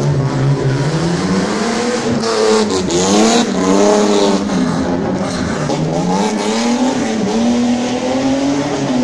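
Rear-wheel-drive competition car's engine revving hard, its pitch climbing and dropping several times as the driver accelerates, lifts and changes gear.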